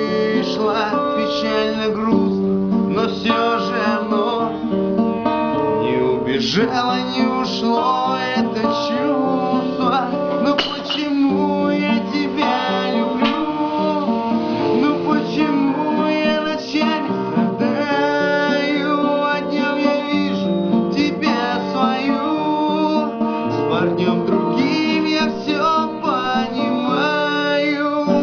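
Acoustic guitar strummed and plucked, playing a song accompaniment.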